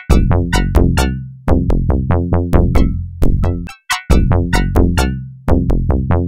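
Electronic background music: quick synthesizer notes, about four a second, over a deep sustained bass, with a drum-machine beat.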